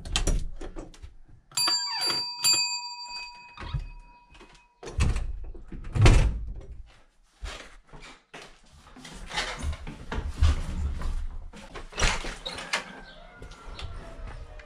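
Three short electronic beeps about two seconds in, then footsteps down wooden stairs with knocks and rustling, and a door being opened near the end.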